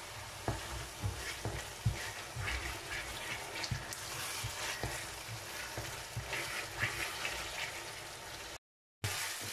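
Onion-tomato masala with ginger-garlic paste sizzling as it fries in oil in a pan, stirred with a wooden spoon that knocks and scrapes softly against the pan. The sound cuts out completely for a moment near the end.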